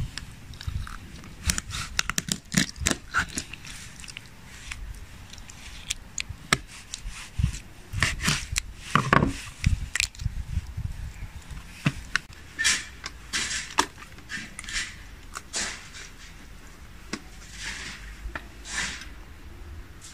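Knife cutting through raw quail on a wooden cutting board, and hands pulling the carcass apart: irregular clicks, scrapes and crackles of small bones and flesh.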